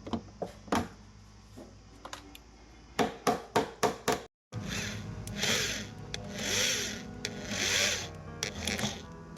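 Several sharp taps and clicks of tools on the hinge parts, then three slow rasping strokes about a second apart, like filing or sawing, with background music.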